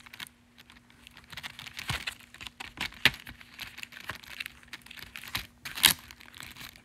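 Fingers handling a cardboard Blu-ray slipcover and its plastic-wrapped packaging: irregular light taps, clicks and crinkles, with a sharper click about three seconds in and another near the end.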